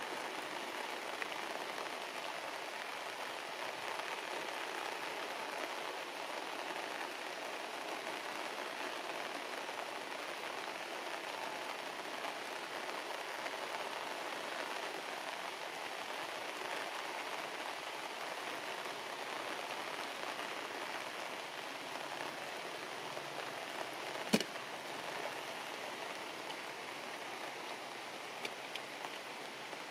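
Steady rain falling on leaves and grass, an even hiss, with one sharp click about three-quarters of the way through.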